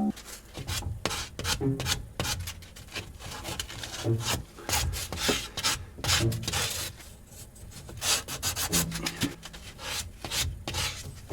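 Hands working plumbing parts and tools under a sink: irregular rubbing and scraping with many small clicks and knocks.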